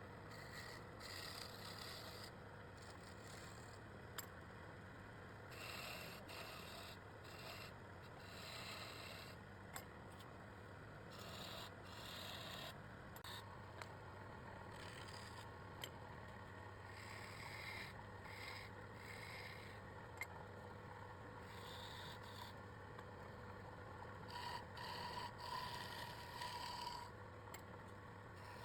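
Irregular strokes of hand scraping and rubbing, coming in short runs and busier near the end, over a faint steady hum.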